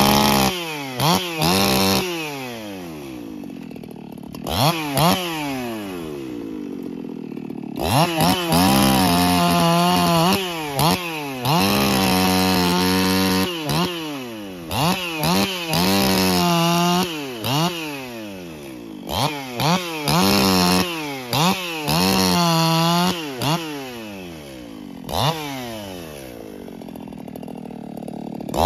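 Brisco-built Echo CS-4910 two-stroke chainsaw with a semi-chisel chain, blipped up and down in quick revs and held at full throttle through several cuts into fallen limbs, each lasting a few seconds, dropping back to idle between them.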